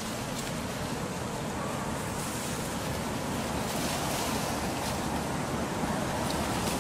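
Steady rushing outdoor noise, like wind blowing across the microphone, with no distinct calls or knocks standing out.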